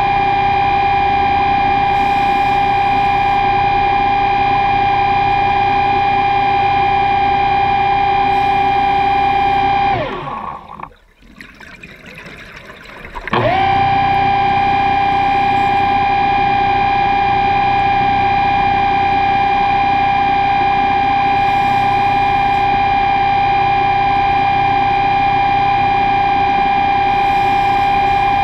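A steady, high-pitched electric motor whine that winds down in pitch and stops about ten seconds in, then starts up again quickly some three seconds later. Short faint hisses recur every six seconds or so.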